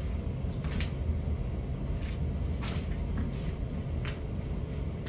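Steady low hum of room noise, with three soft, short swishes of clothing as the wearer moves.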